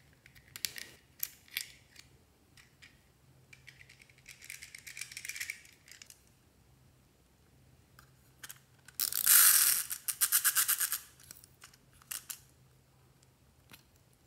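Clockwork of a plastic wind-up toy clicking rapidly for about two seconds, starting about nine seconds in. Before it come scattered light clicks and taps of small plastic parts being handled.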